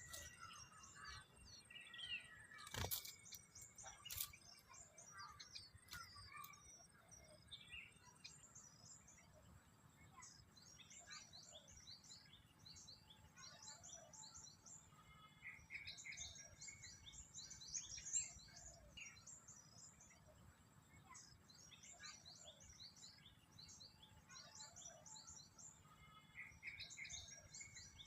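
Small birds chirping: many short, high chirps that come in denser bursts every few seconds. There are two sharp clicks about three and four seconds in.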